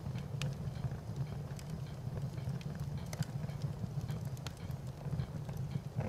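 Fire crackling: a low steady rumble with irregular sharp pops and snaps scattered throughout.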